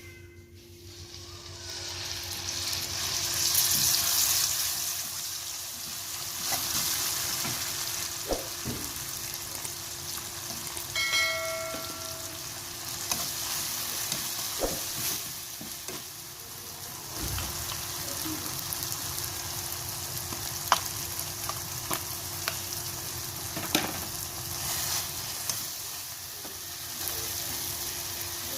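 Food sizzling as it fries in hot oil in a pan and is stirred, with a utensil clicking against the pan now and then; the sizzle swells in the first few seconds.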